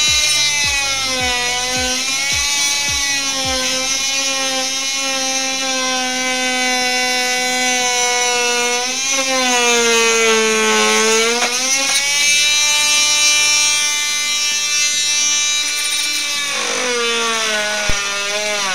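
Electric power tool motor whining steadily, its pitch sagging and recovering several times as the tool is loaded, then cutting off suddenly at the end.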